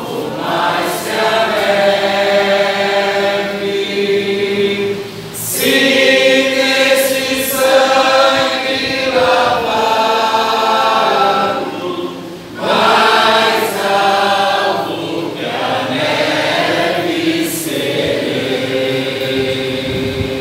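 A group of voices singing a slow worship song, long held sung notes in phrases with short breaks about five and twelve seconds in.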